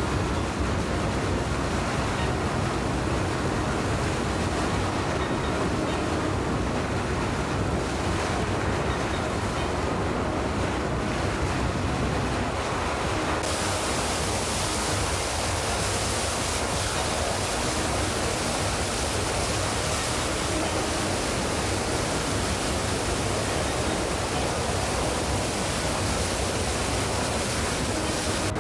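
Sea wash and wind buffeting the microphone, a steady rushing noise. About halfway through it turns hissier, with more high end and less low rumble.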